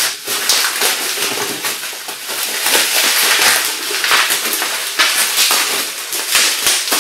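Hands rummaging through a shipping box: continuous rustling with many scattered clicks and knocks.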